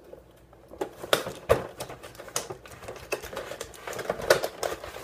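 Stiff clear plastic blister packaging of a carded action figure being handled, giving irregular sharp crackles and clicks.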